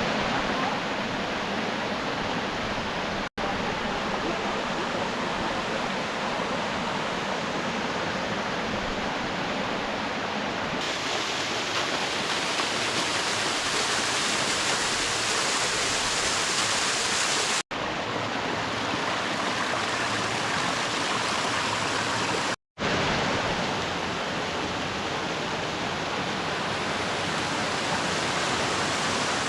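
Steady rushing of water over rocks in a mountain creek's cascades. The sound drops out for an instant at cuts about three, eighteen and twenty-three seconds in.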